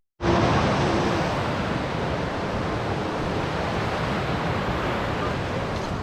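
Steady rush of a mountain creek's flowing water, cutting in after a split-second silence.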